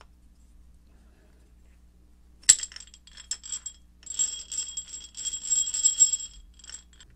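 Steel parts of a vintage eggbeater hand drill clinking as its shaft and gears are fitted together: a sharp metallic click about two and a half seconds in, a few small clicks, then a jingly metallic rattle with a bright ring lasting about two seconds.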